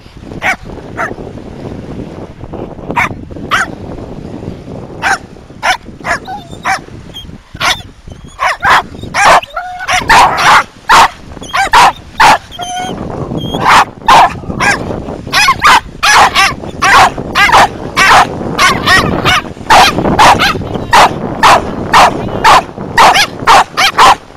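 A dog barking repeatedly in short, sharp barks. The barks are spaced out at first and then come quickly, about two a second, from around ten seconds in.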